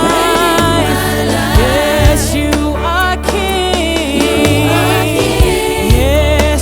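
Gospel worship music from a church band, with voices singing over long held bass notes.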